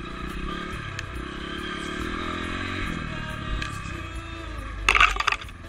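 Dirt bike engine running steadily at low speed through brush. About five seconds in, a short, loud burst of noise rises over it and drops away.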